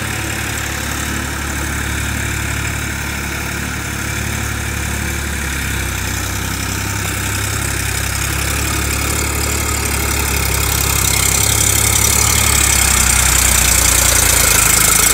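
Indo Farm 2042DI tractor's 45 hp diesel engine running steadily under load as it pulls an implement through wet field mud, growing louder over the last few seconds as it comes closer.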